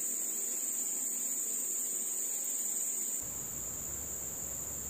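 Steady high-pitched chorus of insects droning at one pitch, with a low rumble coming in about three seconds in.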